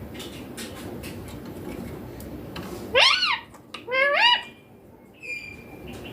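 Young Indian ringneck parakeet giving two loud, high-pitched calls about a second apart, each rising then falling in pitch, followed by a short, thin high note.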